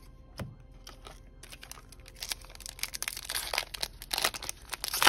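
Foil Yu-Gi-Oh! Invasion of Chaos booster pack crinkling and tearing as it is pulled open by hand, with a dense run of crackles that builds from about two seconds in.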